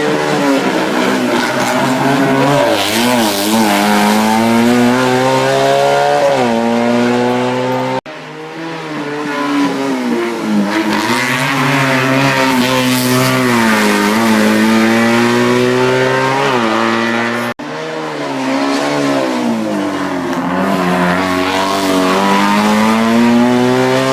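Race car engines on a hillclimb at full throttle, their pitch climbing through the gears and dropping sharply at each shift or lift. The sound cuts off abruptly twice and starts again.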